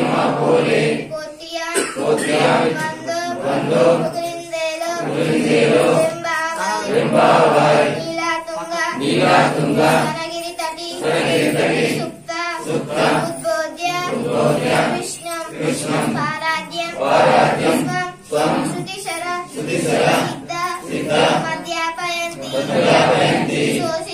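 A girl singing devotional verses into a microphone, in short melodic phrases with brief breaks between them.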